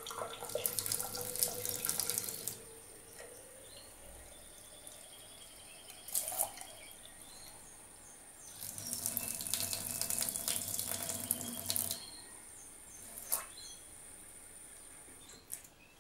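Tap water running into a stainless steel sink and splashing over a feeding syringe as it is rinsed, louder in two stretches of two to three seconds, the second starting about nine seconds in. A couple of short knocks fall between them.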